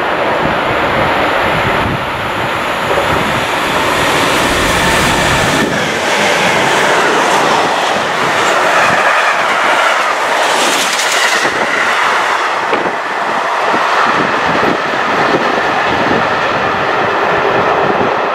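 Freight train of tank wagons passing close by. Its wheels make a loud, continuous rumbling rush on the rails, with a brighter hiss peaking about halfway through as the wagons go by.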